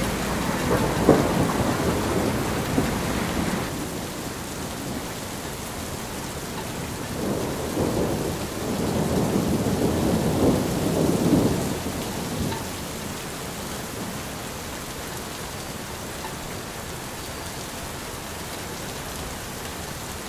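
Rain falling steadily, with two long rolls of thunder. The first is dying away a few seconds in, and the second swells up about a third of the way through and fades out around the middle.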